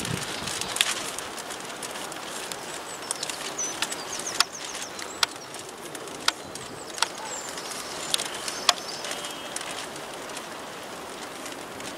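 Class 379 electric train rolling slowly over points and rail joints, its wheels giving sharp, irregular clicks about once a second over a steady rumble. Birds chirp briefly a few times.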